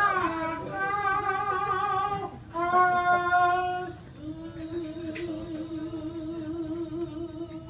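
A voice singing long held notes in an operatic style. The last note is held for about three and a half seconds with a steady vibrato.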